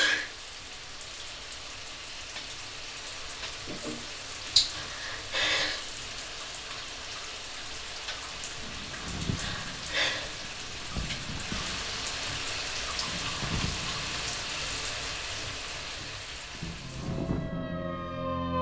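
Shower water spraying steadily, a dense, even hiss with a few brief louder sounds over it. About a second before the end the hiss cuts off and music with gliding tones begins.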